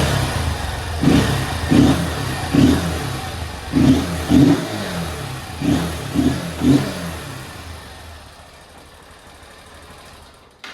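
Honda Bros 160 single-cylinder engine blipped about nine times in quick succession, then settling back and running quieter for the last few seconds. It is running with the intake hose between the air filter box and the engine removed, which gives it a louder, throatier intake sound.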